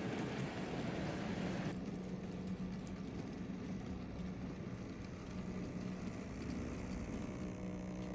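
00 gauge model goods train running along the track: a steady electric motor hum with faint clicking of wheels over the rails. A brighter hissing noise cuts off sharply about two seconds in.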